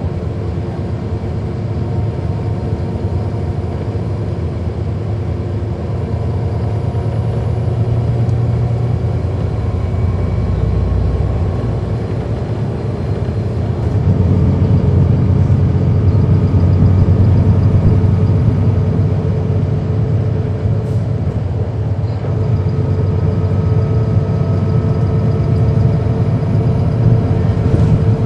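Cabin sound of a 2010 NABI 40-SFW transit bus under way: its Cummins ISL9 inline-six diesel running with a steady low drone over road noise, growing louder about halfway through.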